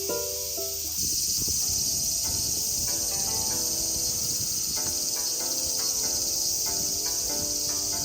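Steady high-pitched insect chorus of summer countryside, growing louder about a second in. Soft melodic music notes play underneath.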